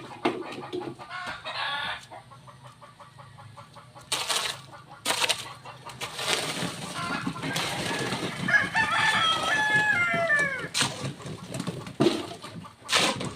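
A rooster crowing once, about two-thirds of the way through: one long call that falls in pitch at the end. Chickens are clucking, and there are several sharp knocks.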